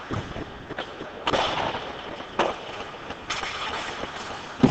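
Ice hockey play at the rink: skate blades scraping the ice in short hissy bursts, a sharp stick or puck knock, and a loud bang just before the end as play comes against the boards by the glass.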